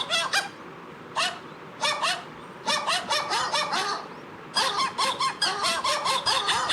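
Novelty "dog singing" ringtone: sampled animal calls (dog barks with chicken, cat and lion sounds) chopped into a rhythmic tune. Runs of quick, short pitched yelps come in groups with short gaps between them.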